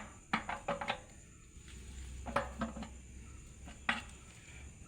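Metal tools and parts clinking and knocking during truck transmission refitting work: a cluster of knocks near the start, then single knocks about two and a half and four seconds in, over a low steady hum.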